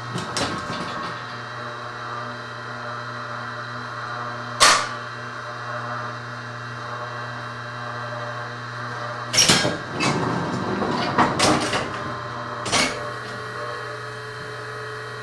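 Cylinder proof press being worked to pull a print, over a steady electric hum. There is a sharp clunk about four and a half seconds in, then a run of knocks and rattles from the carriage and bed between about nine and thirteen seconds.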